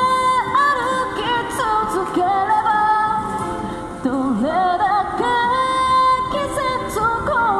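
A woman singing a Japanese pop song into a microphone, amplified through a small portable speaker, with long held notes.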